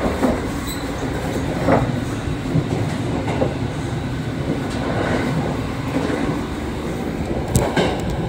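Running noise of a JR 681-series electric train heard in its vestibule: a steady low rumble with a few short knocks and rattles scattered through it.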